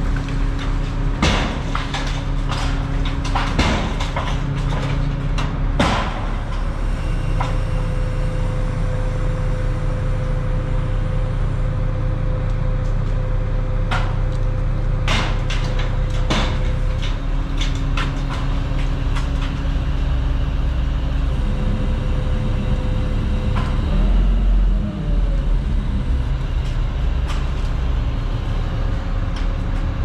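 Truck-mounted crane's diesel engine running steadily, heard from inside the operator's cab, with scattered sharp clicks and knocks. About 24 seconds in, the engine speed rises briefly, then settles.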